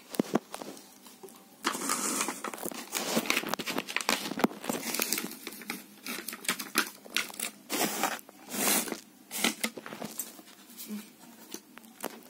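Close-up handling noise: irregular rustling, scraping and small clicks as the plastic crayon boxes and pencil crayons are handled right next to the microphone.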